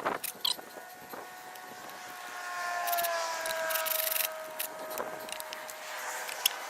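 A long squeal, drifting slightly down in pitch, with a few sharp clicks: pallet nails screeching as they are drawn out of the wood while a floor jack forces the boards apart.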